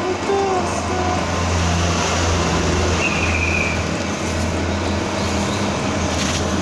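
Motor of a simple cutting machine running steadily with a low hum.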